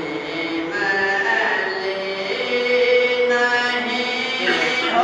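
A man's voice reciting a naat, sung in long held notes that bend and glide in pitch.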